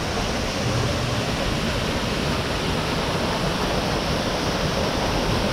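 Artificial rock waterfall pouring into a pool: a steady, even rush of falling and splashing water.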